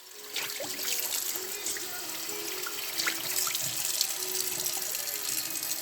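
Kitchen tap running into a sink as fish is rinsed under it, a steady rush of water with small splashes, starting about a third of a second in.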